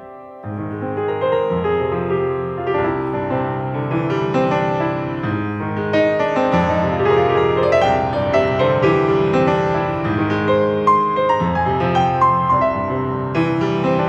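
Solo Steinway grand piano played with both hands: a flowing melody over bass notes, a new phrase coming in after a brief hush about half a second in.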